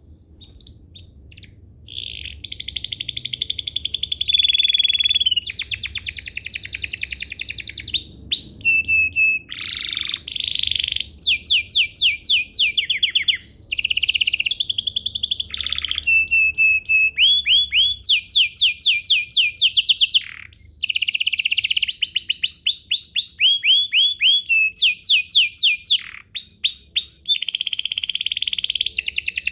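Domestic canary singing a long, almost unbroken song of rapid trills and rolling repeated notes, with a few brief pauses.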